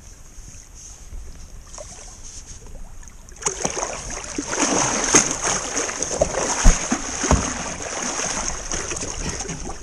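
A large wels catfish thrashing at the surface against the side of a boat, churning and splashing the water loudly from about three and a half seconds in, with two heavy thumps around the middle.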